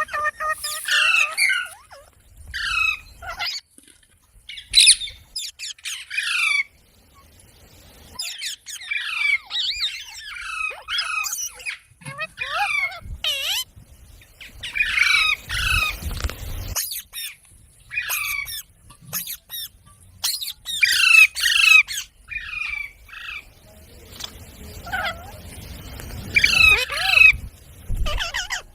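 Parrot squawking in repeated bouts of short, harsh calls, separated by brief pauses.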